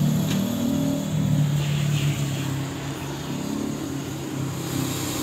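A steady low motor drone, louder for the first couple of seconds and then easing off a little.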